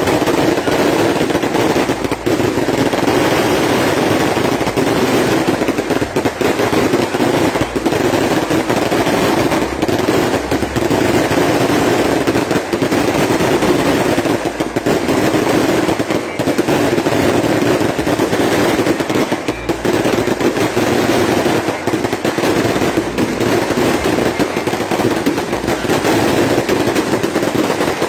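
A loud, continuous barrage of fireworks and firecrackers: rapid popping and crackling with no let-up.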